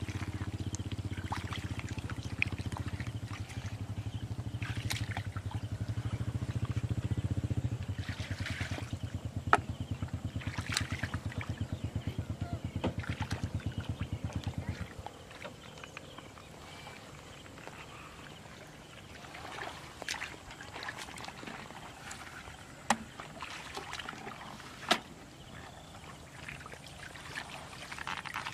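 Hands sloshing and splashing in shallow muddy water, with small trickles and clicks, while fish are groped for in the mud. A low motor drone with a fast, even pulse runs through the first half and cuts off about halfway through.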